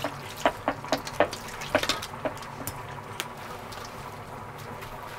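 Water splashing and dripping, with a run of sharp, irregular splashes and clicks over the first few seconds before it goes quieter.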